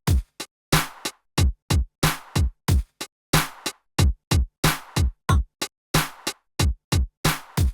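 Electronic background music: a drum-machine beat of punchy kicks that drop in pitch, alternating with sharp hits, about three to four a second with short silent gaps between.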